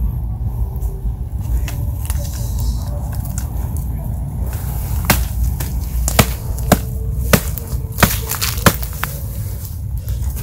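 A machete blade chopping into wood: about six sharp, separate knocks between about halfway in and near the end, over a steady low rumble.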